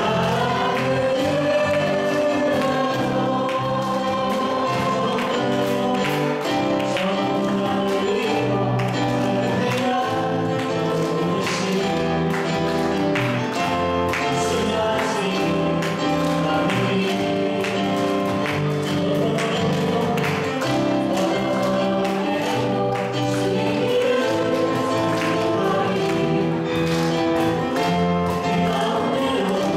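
Worship song sung by a small praise team of one man and two women into microphones, amplified through a PA, with instrumental accompaniment.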